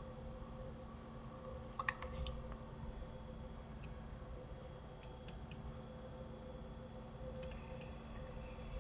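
A few faint, scattered clicks from operating a computer, the sharpest about two seconds in, over a steady low electrical hum.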